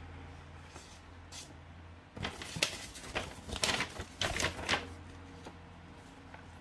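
Folded paper instruction sheet rustling and crackling as it is flipped over and unfolded, a burst of about three seconds starting around two seconds in.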